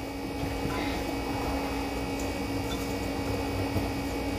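Steady electrical hum at one fixed pitch, with faint uneven scraping of batter being stirred in a stainless-steel mixing bowl.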